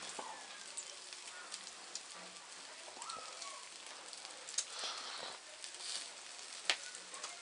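Pork mtsvadi on metal skewers sizzling over charcoal embers, a steady hiss with many small scattered crackles and two louder pops in the second half.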